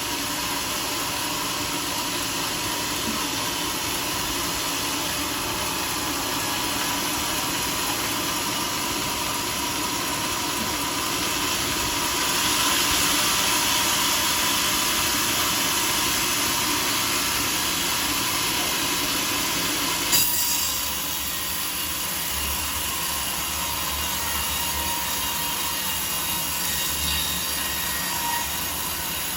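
Sawmill saw running through a teak log: a steady mechanical noise with a faint held tone. It grows louder about twelve seconds in, and a sharp click about twenty seconds in marks an abrupt change to a quieter, lower sound.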